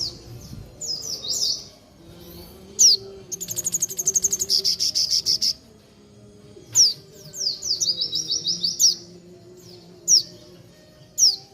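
Sogon bird singing: a series of sharp, high chirps that sweep downward, with a fast rattling trill about three to five seconds in.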